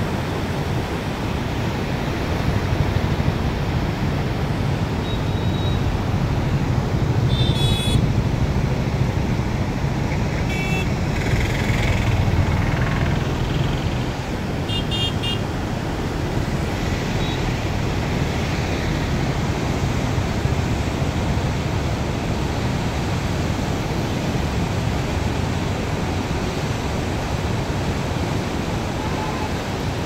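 Steady rushing of heavy floodwater pouring through the barrage gates, mixed with the hum of road traffic. Three short vehicle horn toots sound over it, about a third of the way in, a few seconds later, and around the middle.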